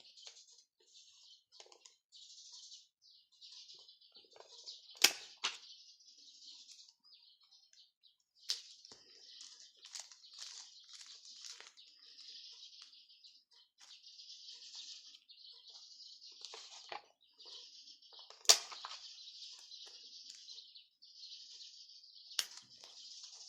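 Paper and stickers being handled while a scrapbook page is made: stop-and-start rustling and rubbing, with four sharp taps or clicks, the loudest about a third of the way in and another near two-thirds.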